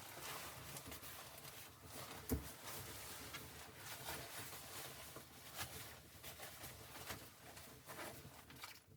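Small irregular rustling and tapping sounds, with one dull thump about two and a half seconds in.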